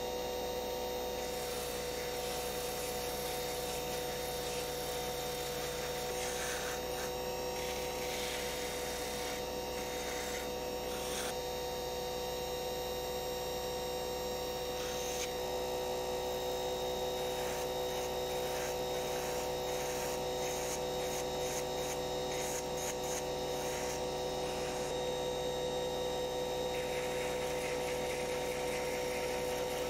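Small rotary tool with a sanding drum running at a steady whine, with a rough rasping that comes and goes as the drum is pressed against padauk wood to shape and smooth a small carving.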